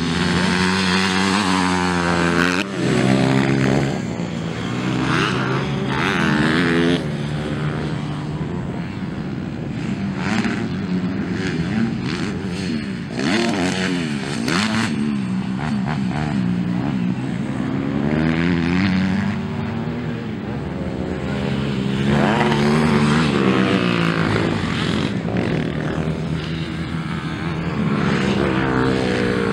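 Motocross bike engines revving hard and backing off as the bikes race around a dirt track, the pitch repeatedly climbing and dropping with throttle and gear changes, at times several engines at once.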